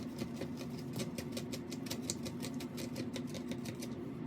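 Rapid light clicking, about six or seven even ticks a second, over a steady low hum.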